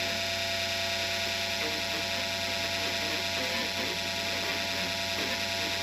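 Steady electrical buzz like mains hum, full of overtones and holding one level throughout, with faint wavering sounds underneath.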